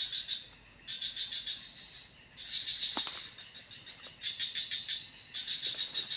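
Forest insects calling: a steady high-pitched drone under rapid chirping trains that start and stop every second or so. A faint tap comes about three seconds in.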